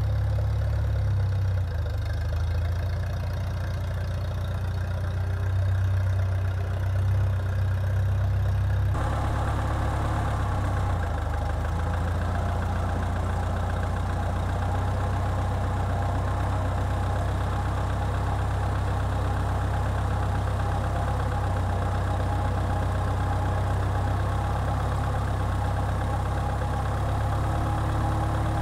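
A Farmall Cub tractor's four-cylinder flathead engine running steadily. Its tone shifts abruptly about nine seconds in.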